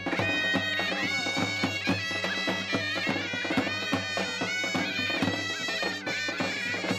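Traditional folk dance music: a bagpipe plays a fast, ornamented melody over a steady drone, with a drum beating time.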